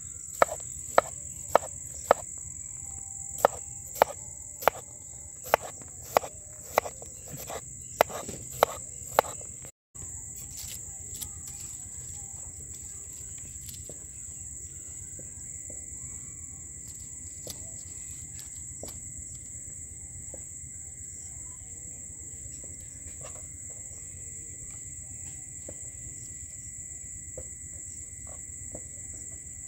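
Large kitchen knife chopping a cucumber into rounds on a bamboo cutting board: a string of about fifteen sharp knocks, roughly two a second, stopping about ten seconds in. Crickets chirr steadily throughout as a high, continuous trill.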